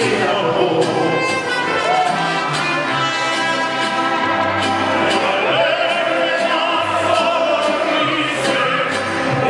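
Live mariachi band, with violins, trumpets and a guitarrón bass, accompanying several singers who sing together into microphones; the voices hold long, wavering notes over a bass line that steps from note to note.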